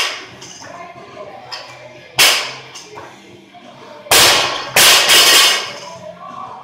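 A 115 lb barbell with bumper plates slammed onto a rubber gym floor: sharp loud impacts right at the start and about two seconds in, then the loudest pair about four and five seconds in, ringing on briefly after the second.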